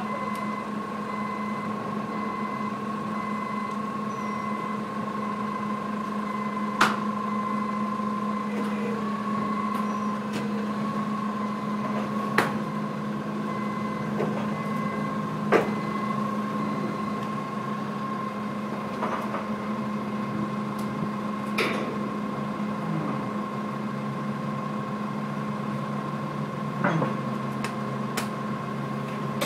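Steady machine hum with a few sharp knocks and clanks spread through it, from work inside a steel shipping container.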